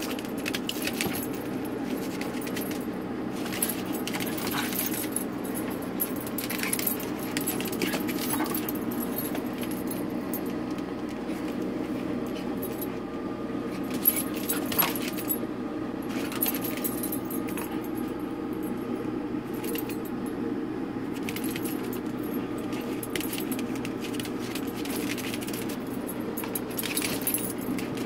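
Two Yorkshire terriers play-wrestling: the metal rings of a harness jingle and clink in short, irregular bursts as they tussle, over a steady low hum.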